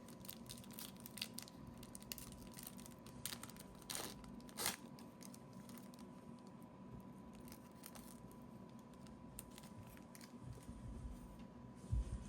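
Trading cards being handled and flipped through: faint rustling and soft clicks, with two sharper taps about four seconds in.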